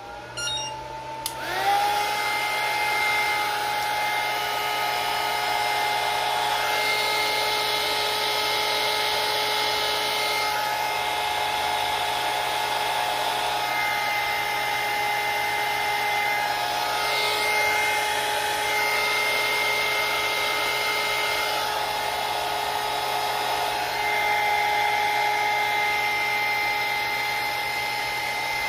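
Small handheld heat gun running, shrinking heat-shrink tubing over the LED's wire leads. Its fan spins up about a second in with a rising whine, then holds a steady whine over a rush of air.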